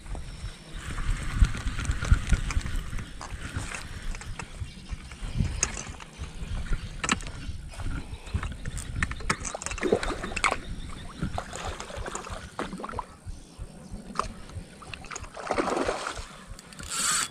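Spinning reel being cranked with scattered clicks and rattles while a hooked silver carp is reeled in, with wind buffeting the microphone in gusts. A brief splash-like burst near the end as the fish comes close to the surface.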